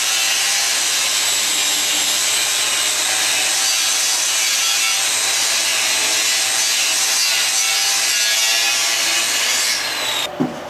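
Power sander working over a welded steel frame: a steady, loud abrasive hiss with a faint motor whine under it. It stops abruptly shortly before the end.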